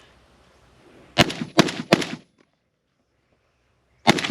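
PSA AK-105 rifle in 5.45×39 firing three shots in quick succession about a second in, each with a short echo. After a pause, a fast string of shots starts near the end.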